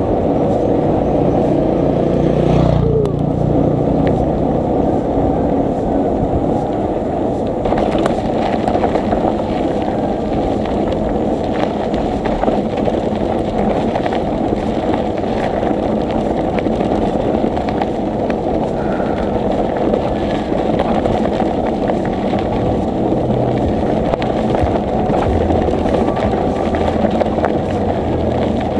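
Steady low rumbling wind and road noise on a moving bicycle ride, loud and even, with a brief falling tone about three seconds in.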